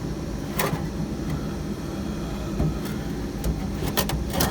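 A steady low hum with a few sharp knocks of metal and wood being handled: one about half a second in, and several close together near the end.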